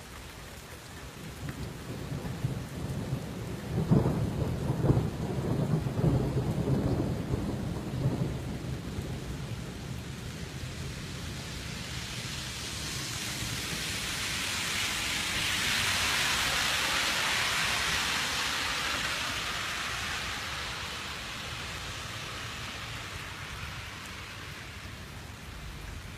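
Thunder rumbling over steady rain for several seconds, loudest about four to six seconds in. Later a long hiss of rain swells and fades over about ten seconds.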